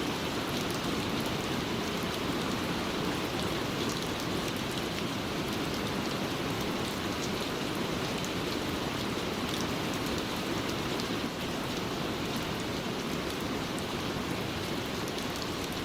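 Steady rain falling, an even hiss with faint scattered drop ticks, with no music over it.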